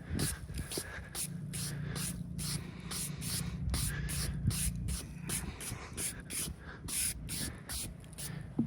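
G888 chainsaw on a chainsaw mill running at a steady high speed through a white oak log, with the chain's chip spray rasping in quick irregular pulses over the engine's steady hum.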